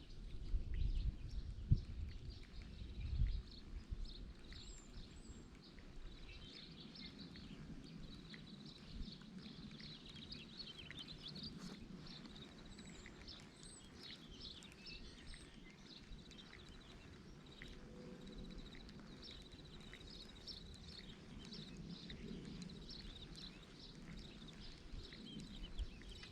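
Birds chirping and calling faintly over steady outdoor ambience, with a few low thumps in the first few seconds.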